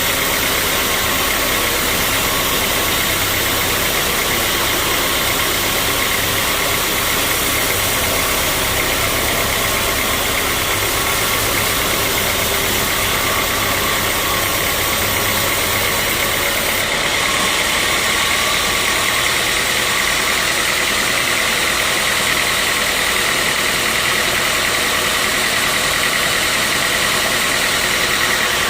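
Sawmill saw running steadily through a mahogany log: a loud, constant machine noise with a steady high whine, whose tone shifts slightly about seventeen seconds in.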